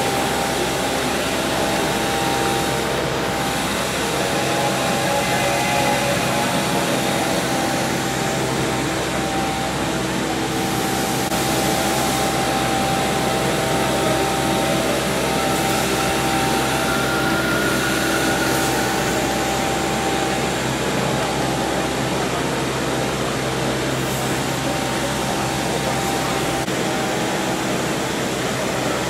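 Steady hiss and hum of a large, busy exhibition hall, with a faint murmur of voices.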